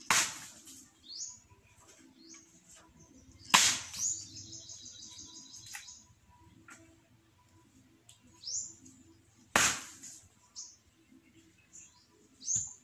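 Four heavy chops of a long-handled blade striking coconuts, sharp single blows a few seconds apart. Between them, birds chirping with short high downward-sliding calls and a quick high trill after the second chop.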